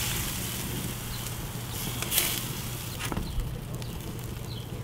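Apple juice sprayed onto pork in a chulengo barrel smoker: two short hisses of spray about two seconds apart, then a sharp click about three seconds in, over a low steady hum.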